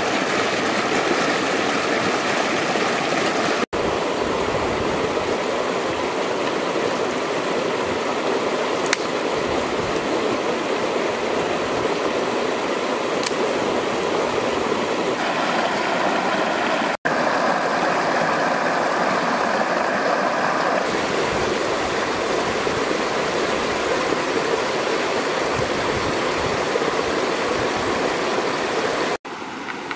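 River water rushing over rocks in a small cascade: a steady, loud rushing. It cuts out for an instant three times, and after the last break it is somewhat quieter.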